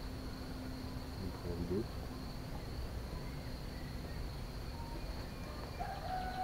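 Steady, high-pitched insect chorus over a low background rumble. A short wavering tonal sound comes about a second and a half in, and a long, slightly falling tone begins near the end.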